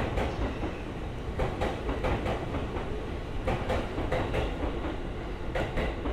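Train wheels running over rail joints: sharp clicks, mostly in close pairs, at uneven intervals over a steady low rumble.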